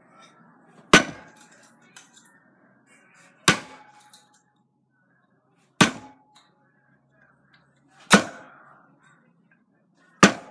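Darts hitting a dartboard one at a time: five sharp hits, roughly two and a half seconds apart.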